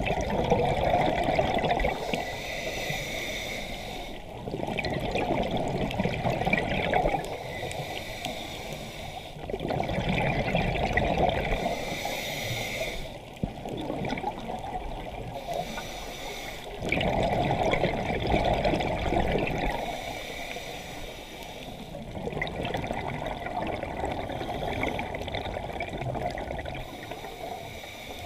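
Scuba diver breathing through a regulator underwater: exhaled bubbles gurgle and rush in loud spells that come about every five seconds, with a quieter hiss of inhaling between them.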